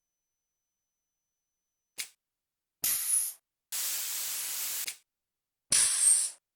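Machine sound effects: a short click, then a brief hiss, a steady hiss lasting about a second, and another brief hiss near the end, with dead silence in between.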